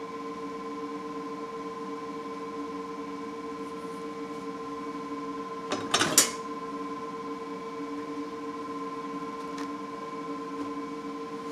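Steady machine hum of several fixed tones, with a short clatter of metal parts and tools handled on a workbench about six seconds in.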